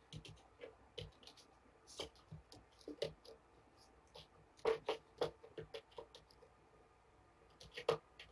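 Irregular soft clicks and scratches from a kitten being syringe-fed formula and held against a person's chest. They come in clusters, loudest about halfway through and again near the end.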